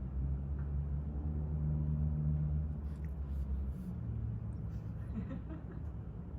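A steady low rumble with a hum that drops off after about four seconds, with a few faint clicks around the middle.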